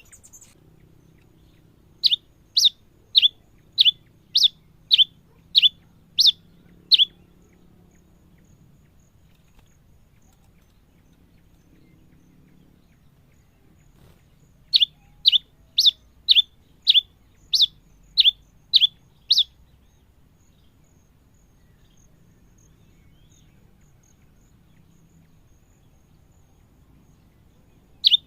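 A cravina (grey pileated finch) singing: two phrases of about nine sharp, down-slurred whistled notes, roughly two a second, the first about two seconds in and the second about fifteen seconds in.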